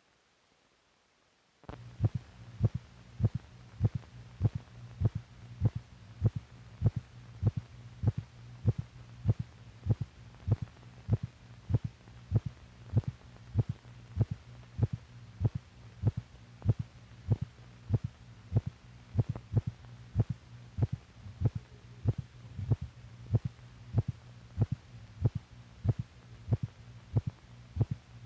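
Recorded, amplified heartbeat: a steady, fairly fast beat at about a hundred a minute, starting suddenly after a second or two of silence, over a constant low hum.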